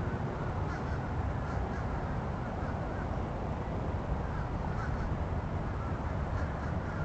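Several short bird calls, heard a few times (about a second in and again near the end), over a steady low rumble.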